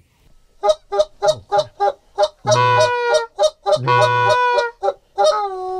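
Goose call blown by a hunter at incoming geese: a quick run of short clucks, about five a second, then two long drawn-out notes held at a steady pitch and a shorter one near the end.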